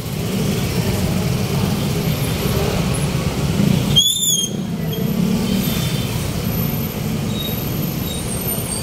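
City street traffic: a steady rumble of passing vehicles, with a brief high-pitched chirp about four seconds in.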